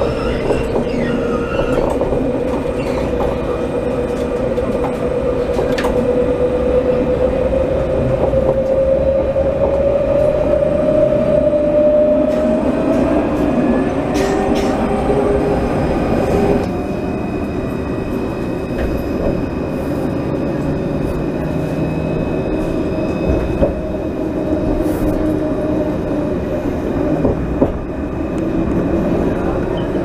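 Light-rail tram running, heard from inside the passenger car: a steady rumble of wheels on track under an electric motor whine that climbs slowly in pitch as the tram gathers speed, giving way about halfway through to a lower running sound with faint high steady tones.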